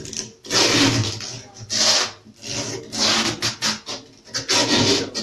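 Microphone handling noise: a series of loud rubbing and scraping bursts, each about half a second, as the microphone and its gooseneck stand are being adjusted.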